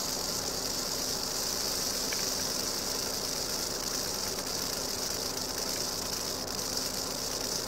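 Eastern diamondback rattlesnake rattling its tail as a defensive warning: a steady, unbroken high buzz made by the loose, nested rattle segments knocking against one another.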